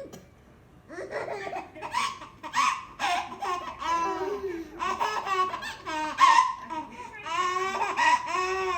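Baby laughing in repeated bursts, starting about a second in.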